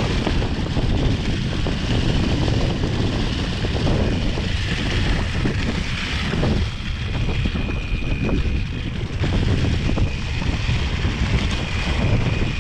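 Wind buffeting the action camera's microphone as a Cannondale Scalpel mountain bike rolls downhill over fallen leaves, its tyres rumbling and the bike rattling over the bumps, a steady noise throughout.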